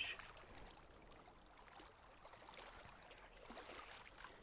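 Near silence: a faint, even hiss from the soft bed of water-themed ambient music.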